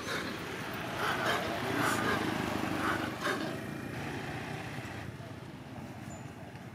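A vehicle passing on the road, its noise building, peaking about two seconds in and fading away by about five seconds.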